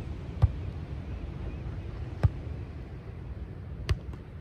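Beach volleyball being struck by players' hands and forearms during a rally: three sharp hits a little under two seconds apart, over a steady low rumble.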